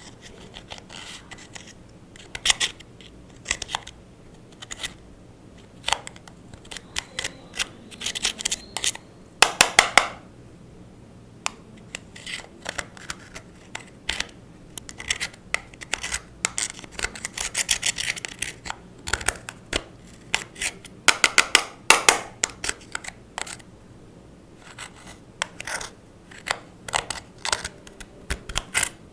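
Clear slime being worked by hand, giving irregular sticky clicks and crackling pops, some in quick flurries.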